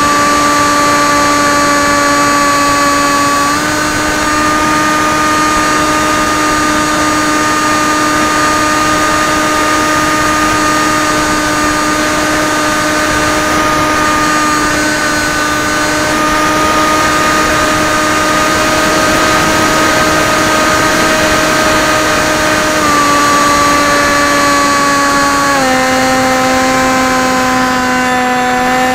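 The brushless outrunner motor and 6x4 pusher propeller of an AXN Floater-Jet RC plane, heard close up from on board: a steady, loud buzzing whine. Its pitch steps up slightly a few seconds in, then drops in two steps near the end.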